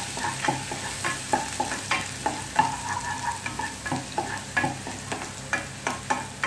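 Wooden spatula scraping and knocking against a pot, a couple of strokes a second, while chopped onion, garlic and ginger sauté in hot olive oil with a steady sizzle.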